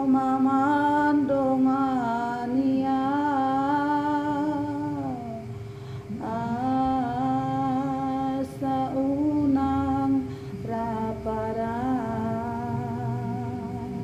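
A woman singing a slow Batak-language song solo, holding long drawn-out notes, with short breaths between phrases about five and a half and ten seconds in.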